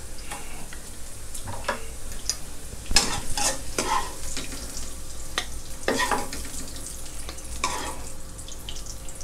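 A metal ladle scrapes and scoops fried shiitake mushrooms out of a non-stick wok in a series of irregular scrapes and clinks, the sharpest about three seconds in. Under them is a light sizzle from the wok, whose flame has just been turned off.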